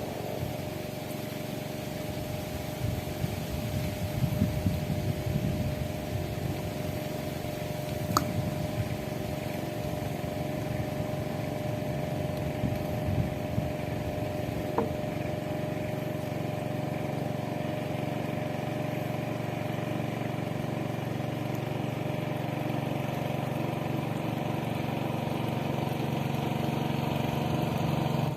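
A small boat engine running steadily with an even hum, growing slowly louder toward the end. Two brief knocks sound about 8 and 15 seconds in.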